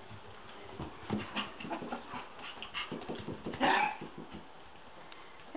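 Six-week-old Shichon puppies play-wrestling, giving small whimpers and yips over a run of scuffling; one louder yip about three and a half seconds in.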